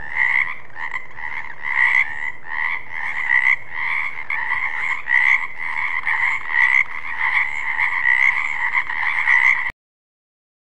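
Frogs croaking in quick, repeated calls at a steady level, stopping abruptly near the end.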